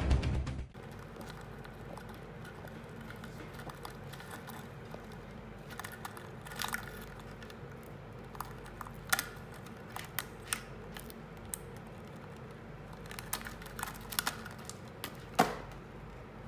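Music cuts off within the first second. Then come scattered light clicks and scratches from Japanese rhinoceros beetles' claws and horns on a wooden stage as the beetles grapple and walk, over a faint steady hiss; the sharpest click comes near the end.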